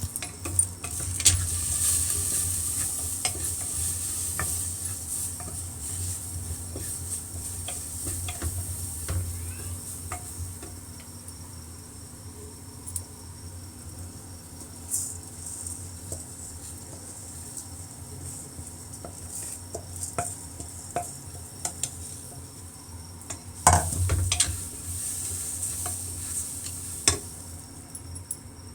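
Food sizzling in a cooking pan while a spoon stirs it, with frequent small clicks and scrapes against the pan and a louder clank about 24 seconds in.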